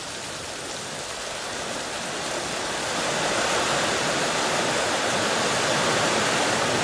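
Heavy rain pouring down, getting louder over the first three seconds and then holding steady, a downpour heavy enough that the gutters are overflowing.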